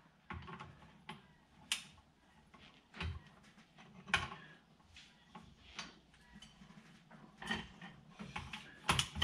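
Ratchet wrench clicking irregularly as a flywheel bolt is tightened to torque, with a few short metallic clicks of the tool on the bolts.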